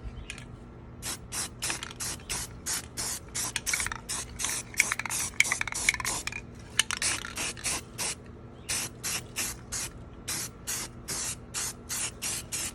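Black spray paint hissing out in short, quick bursts, about three a second, with a couple of brief pauses, as coats go onto the gas cap.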